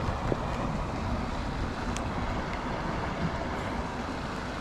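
Steady rush of flowing river water, with low wind rumble on the microphone.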